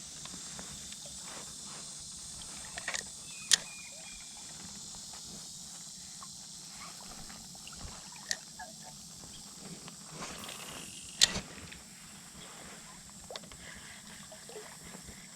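Steady high-pitched outdoor hiss with a few sharp clicks, the loudest about three and a half seconds and eleven seconds in.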